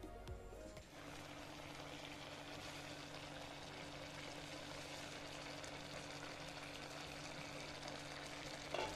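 Raw mango slices simmering in water and jaggery in a pan, a faint, steady bubbling hiss that sets in about a second in.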